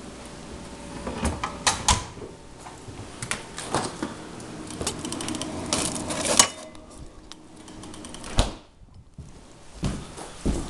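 Irregular clicks, knocks and clatter of frozen food packages being shifted about inside a freezer, with one heavier knock about eight seconds in.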